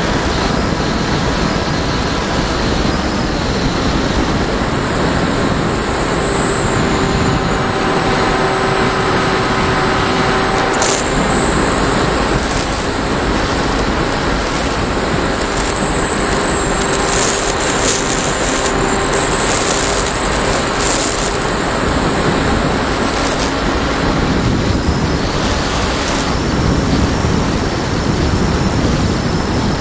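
Loud, steady rush of air over an RC motor glider, heard through its onboard camera's microphone, with the thin high whine of its motor wavering up and down in pitch.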